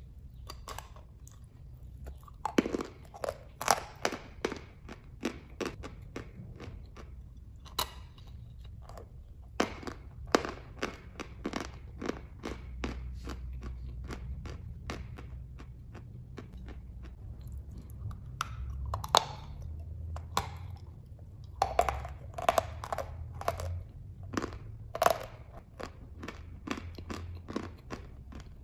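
Dry, crisp crunching as a block of white chalk is bitten and chewed: sharp cracks come in several dense clusters, with sparser chewing clicks between them.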